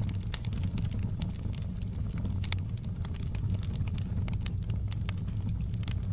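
Wood fire in a fireplace crackling, with sharp irregular pops over a steady low rumble.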